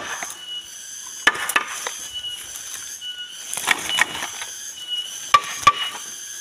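Dry brush, stems and bamboo leaves rustling and cracking as they are pushed through by hand, with several sharp snaps of woody stems, mostly in pairs.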